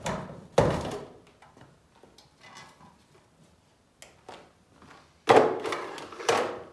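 Hard plastic clacks and knocks from a food processor as its lid is unlocked and lifted off and the parts are set down: two sharp clacks near the start, a few light ticks, then two louder knocks about five and six seconds in.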